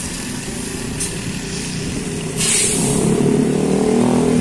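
A tour bus's diesel engine running close by. About two and a half seconds in there is a short burst of air hiss, then the engine grows louder.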